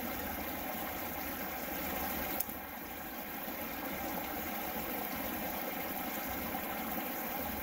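A small creek running over rocks: a steady, even rushing of water, with one brief click about two and a half seconds in.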